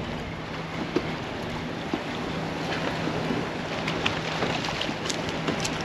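Fishing boat on the water with its engine idling as a steady low hum, under wind on the microphone and the wash of the water, with a few small clicks and knocks.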